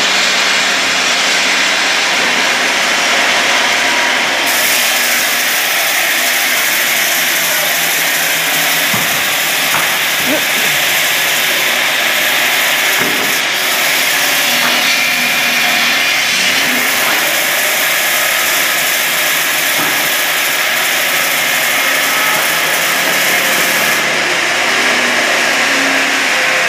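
Multi-blade band resaw running and cutting slab wood into boards: a loud, steady sawing noise. Its high hiss grows stronger from about four seconds in and eases near the end.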